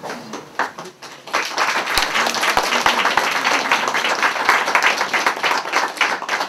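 A crowd of children applauding: a few scattered claps at first, filling out into steady applause about a second and a half in.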